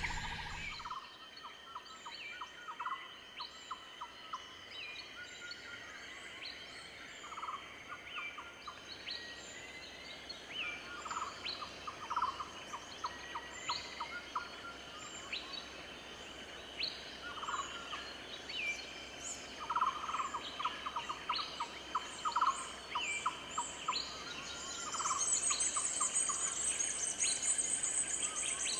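Natural soundscape of many birds calling: repeated rapid trills and short chirps over steady high-pitched insect tones. A loud, dense, high insect buzz comes in near the end.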